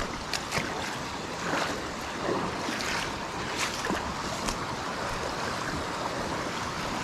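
Small whitewater river rushing steadily, with a few splashes in the first few seconds as someone moves through the water.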